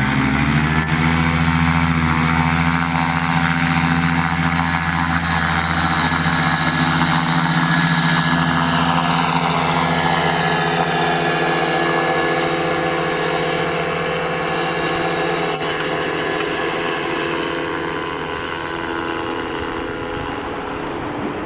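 Paramotor engine and propeller revving up quickly to high power, then running steadily at full throttle for takeoff and climb, slowly growing fainter toward the end.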